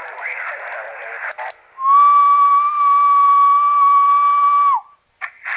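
Ham radio receiver audio: band hiss through the narrow receive passband, then a loud steady whistle-like tone lasting about three seconds that dips in pitch as it cuts off, typical of a carrier heard on the band. The hiss returns near the end.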